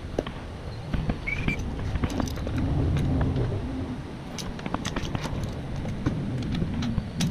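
Light metallic clicks and clinks of a hex key and locking pliers against the headlight mounting bolt, over a low rumble that swells briefly early on. A short high squeak sounds about a second in.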